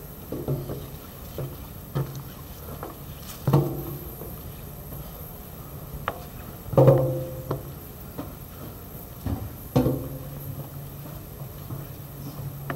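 Footsteps climbing a steel staircase with metal grating treads: irregular knocks, each setting the stair ringing briefly with a low hum. The heaviest step lands about seven seconds in.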